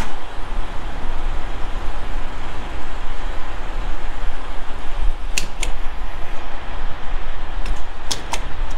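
Diesel pump dispensing fuel: a steady rushing noise with a low rumble, broken by a few short sharp clicks about five seconds in and again near the end.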